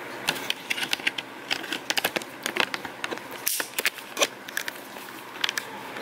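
Irregular clicks and crackles of the camera being handled, over the steady whir of a 1994 Duracraft DB-104 box fan running on low. The sound drops out for a moment about halfway through.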